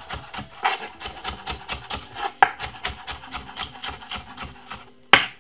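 Kitchen knife chopping spring onion on a wooden chopping board: rapid taps of the blade on the wood, several a second, with one louder knock near the end.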